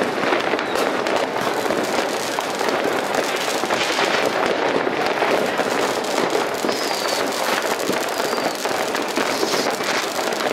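Many fireworks and firecrackers going off at once across a town: a dense, unbroken crackle of pops and bangs with no single blast standing out.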